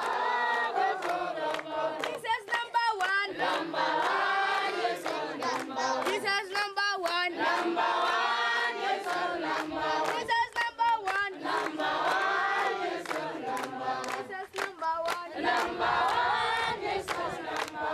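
A group of voices singing a chant together, with rapidly wavering high notes at times and many sharp, clap-like beats.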